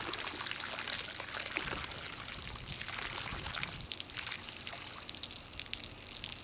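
Garden hose stream splashing steadily onto the surface of canal water, a continuous fine spattering.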